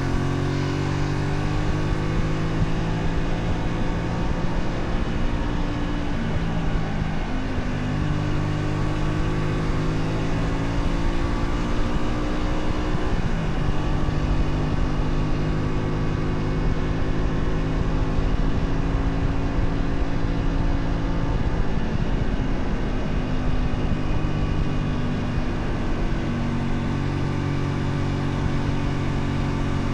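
Honda Shadow 125's small V-twin engine running under way at a steady throttle, with wind and road noise. Its pitch sags briefly about 7 and 13 seconds in and again near the end, as at gear changes, and climbs slowly in between.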